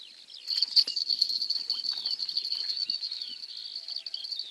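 A steady, high-pitched insect trill starts suddenly about half a second in and keeps going, loud, with birds chirping behind it.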